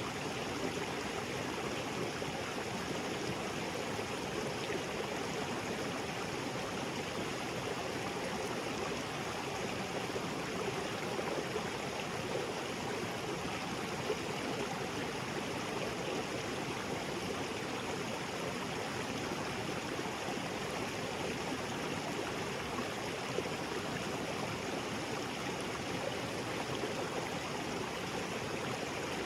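Small waterfall on a jungle creek splashing and rushing steadily, with no change in level.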